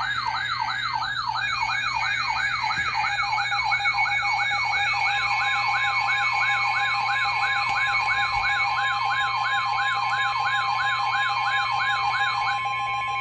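Electronic siren-like alert tone yelping up and down about three times a second. About five seconds in a steady tone near 1 kHz joins, the weather-radio alert tone that heralds a warning, and it runs on after the siren stops near the end.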